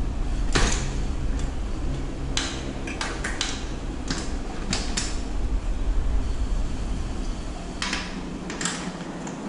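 Irregular knocks and scrapes of a metal bicycle kickstand being handled and fitted against the rear of a mountain bike's frame, about a dozen short strokes, over a steady low hum.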